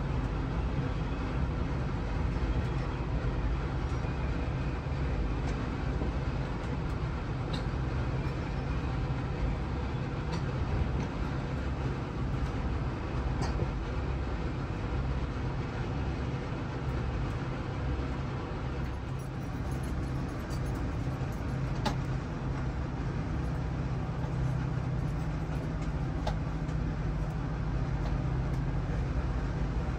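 Steady low rumble of a vehicle in motion, with a few faint clicks and ticks over it.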